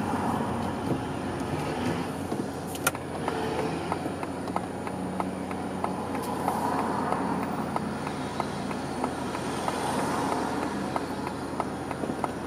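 Car engine and road noise heard from inside the car as it creeps forward and then waits in slow town traffic. A sharp click comes about 3 s in, and a faint regular ticking about twice a second runs through the second half.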